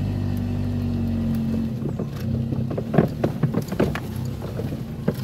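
A car engine running, heard from inside the cabin, with a steady hum for the first couple of seconds. From about two seconds in, irregular knocks and clatters come in as the car moves over rough ground.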